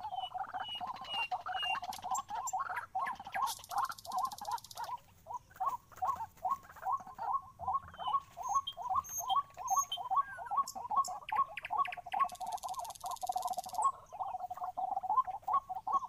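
White-breasted waterhen calling: a long unbroken run of short, croaking notes, about four a second.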